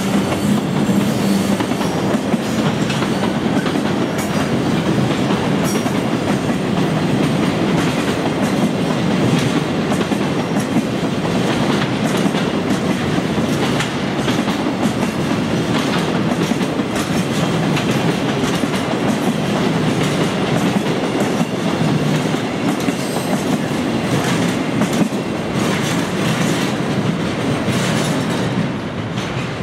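Freight train's container flat wagons rolling past close by, a steady rumble of wheels on rail with frequent clicks and clatter.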